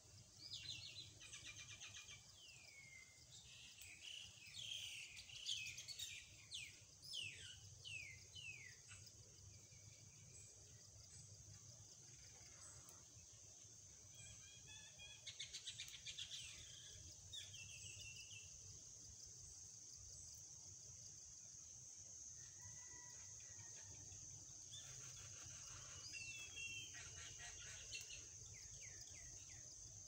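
Myna birds calling in bouts of falling whistles and rapid clicking rattles: the first for several seconds at the start, another about halfway, and a last one near the end. A steady high insect drone runs underneath.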